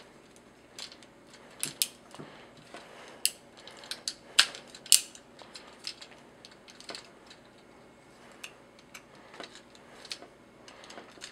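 Plastic joints and parts of a TFC Toys Phobus transforming robot figure clicking as its legs are folded by hand: irregular clicks and clacks, with the loudest snaps between about three and five seconds in.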